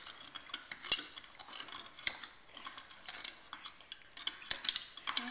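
Metal teaspoon stirring inside a clear plastic cup, giving irregular light clinks and scrapes against the wall and bottom several times a second, as crystal-growing powder is stirred into hot water to dissolve it.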